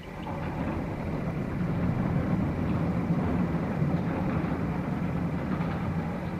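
Steady low rumble that rises quickly at the start and then holds level.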